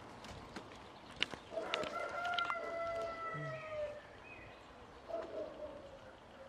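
A rooster crowing: one long call starting about one and a half seconds in and lasting over two seconds, sagging in pitch at the end, then a fainter drawn-out crow near the end. Two sharp clicks or taps fall around the first crow, the first of them the loudest sound.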